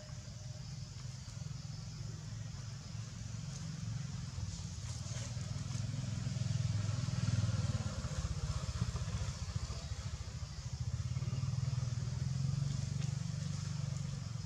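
A motor vehicle's engine running. Its low rumble grows louder about halfway through, eases, then swells again near the end.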